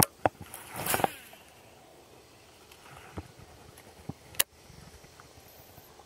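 Baitcasting reel and rod being handled: a sharp click at the start, a brief swishing rustle about a second in, then a few scattered light clicks.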